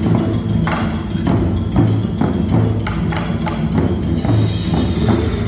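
Live drum performance: a fast, uneven run of drum strikes over a sustained low ringing tone, with a brief high shimmer about four seconds in.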